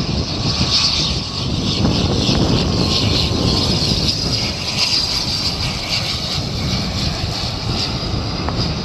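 ATR twin-turboprop airliner on landing approach, its engines and propellers giving a loud, steady drone with a high whine over a low rumble.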